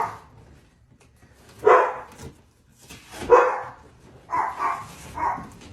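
A dog barking: two single barks about a second and a half apart, then three quicker barks near the end.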